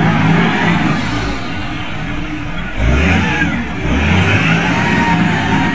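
Lonking CDM833N wheel loader's diesel engine running, then revving up hard about three seconds in as the bucket is driven into a sand pile, putting the engine under heavy load.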